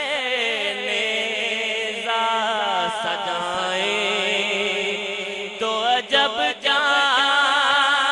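A man singing a naat (Urdu devotional poem) into a microphone, drawing out long, wavering notes with slides in pitch and a few short breaks about six seconds in.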